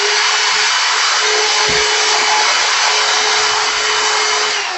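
An electric fan-motor appliance running with an even rushing of air and a steady whine, winding down near the end.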